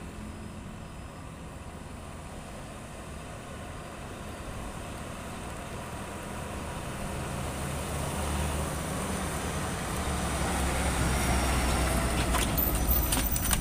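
Diesel container truck, a tractor unit hauling a shipping container, approaching and passing close by. Its engine and tyres grow steadily louder as it nears, peaking near the end with a few clanks from the rig as it goes past.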